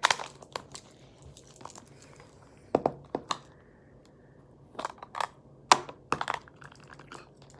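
Foam squishy toy being squeezed and handled close to the microphone. Short, irregular rustles and clicks come in a few clusters, with a quieter stretch in the middle.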